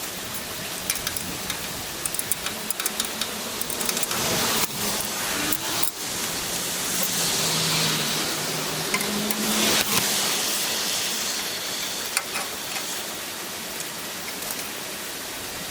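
A steady hiss like rain, with scattered sharp clicks and knocks, most of them in the first half.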